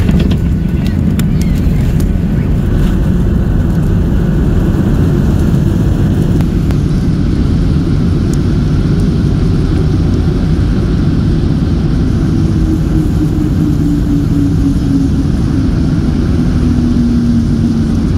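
Cabin noise of a Boeing 737-800 rolling down the runway just after landing: a loud, steady roar and rumble, with a few sharp rattling clicks in the first few seconds. In the second half an engine tone slides down in pitch as the CFM56 engines wind down.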